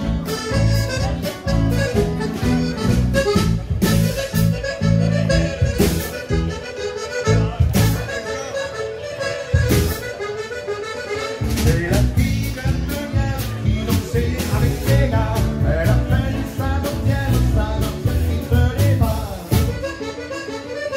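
Live dance band led by an accordion playing a tune, with drums keeping a steady dance beat.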